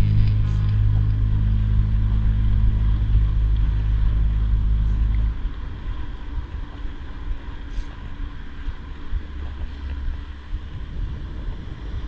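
A vehicle engine running at a steady pitch with a low hum. About five seconds in the hum drops away abruptly, leaving a quieter, uneven rumble.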